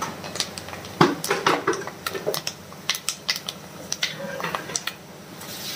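Steel ladle stirring masala in an iron kadhai, knocking and scraping against the pan in a string of irregular sharp clinks.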